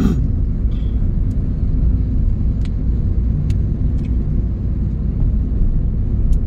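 Steady low engine and road rumble of a manual-transmission car driving along a road, heard inside the cabin, with a few faint clicks.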